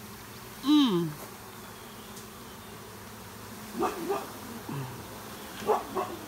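A honey bee swarm buzzing steadily as the clustered bees are tipped out of a tote into a hive box. About a second in, a loud short call falls in pitch, and a few shorter calls come around four and six seconds in.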